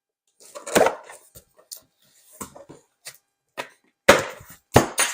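Handling and opening a new Power XL grill air fryer: scattered knocks and rustles, with a loud knock about a second in and two more near the end.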